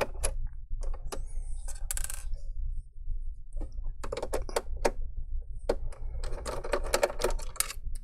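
Phillips screwdriver removing the small screws that hold an all-in-one PC's LCD panel: quick runs of small clicks and taps of metal on metal and plastic, bunched most densely about four and seven seconds in.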